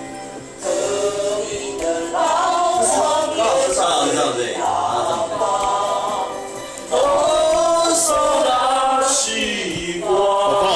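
Background music: a Mandarin pop song with sung vocals over a steady instrumental backing.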